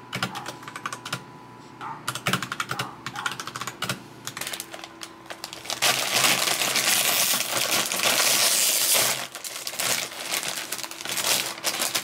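Clicky typing on a mechanical keyboard. Midway, the foil bag of a packet of potato chips crinkles loudly for about three seconds as it is handled, and lighter clicks and rustles follow.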